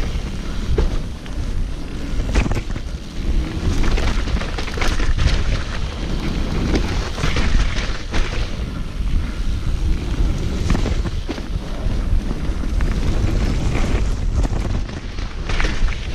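Mountain bike ridden down a dirt trail, heard from a bike-mounted or helmet camera: wind buffeting the microphone with a steady rumble, and frequent sharp knocks and rattles from the bike over rough ground.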